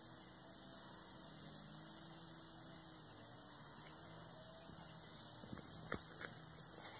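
Quiet background: a steady high-pitched hiss with a faint low hum beneath it, and a few soft ticks about five to six seconds in.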